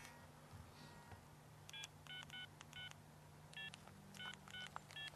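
Mobile phone keypad beeps: about eight short electronic tones, one for each button press, starting about a second and a half in and coming at irregular intervals.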